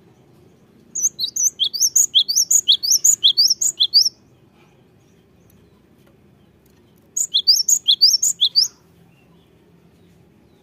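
Cinereous tit (gelatik batu) singing: a fast run of short, high, sweeping notes lasting about three seconds, then after a pause a shorter run of about a second and a half.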